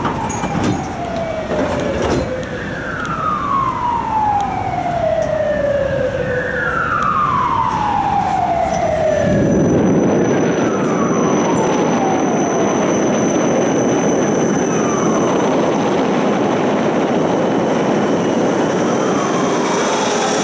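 Emergency vehicle siren sounding a series of falling wails, each dropping in pitch over two to three seconds, growing fainter in the second half. From about halfway a steady rushing city-traffic noise takes over.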